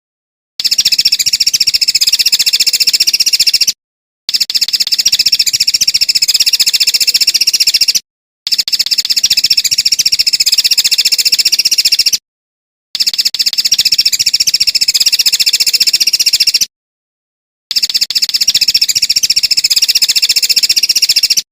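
A small caged songbird singing a fast, dense, high-pitched chattering song in five stretches of about three to four seconds, each broken off by a brief dead silence.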